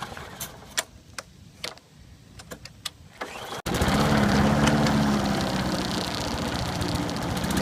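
Scattered sharp clicks and knocks, then, after an abrupt cut about three and a half seconds in, a small four-stroke lawn mower engine running steadily and loudly. The engine has just been pull-started after a fuel-system cleanup and tune-up.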